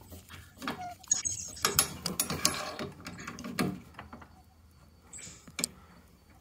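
A long Phillips screwdriver clicking and scraping as it undoes the small screws holding a boiler gas valve to its metal mounting plate. The clicks come in a busy cluster a second or two in and thin out toward the end.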